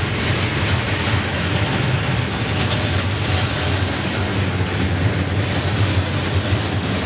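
A freight train's loaded cars rolling past, steel wheels on rail making a steady rumble and hiss with no break.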